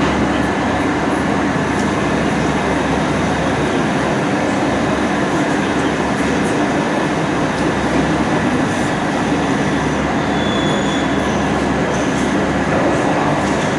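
Engine lathes running in a machine workshop: a steady mechanical hum and whir with a few faint metallic clicks.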